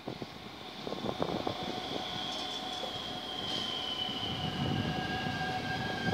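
NS double-deck electric train moving slowly through the station: a high whine that slowly falls in pitch, with further steady tones from the running gear. A low rumble builds near the end.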